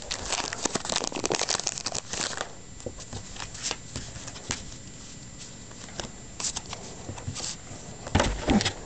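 Foil Pokémon booster pack wrapper crinkling as it is handled: dense crackling for the first two seconds or so, then scattered rustles, with a louder burst of handling noise near the end.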